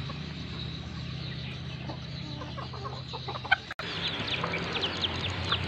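Free-range chickens clucking softly; after a cut about two-thirds through, many chicks peep rapidly among the hens. A steady low hum runs underneath.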